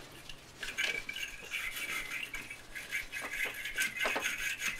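Wire-brush battery terminal cleaner scraping inside a battery cable clamp, a scratchy rasping with small metallic clicks, cleaning off corrosion.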